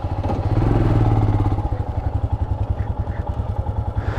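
Motorcycle engine idling with an even, rapid pulsing beat, slightly louder for a moment about half a second in.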